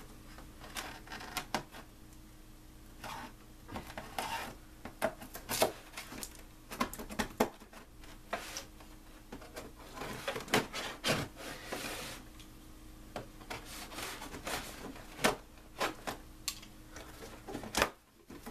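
Packing tape being cut on a cardboard box and the flaps handled: a string of scraping, rubbing and clicking sounds with sharp ticks scattered throughout.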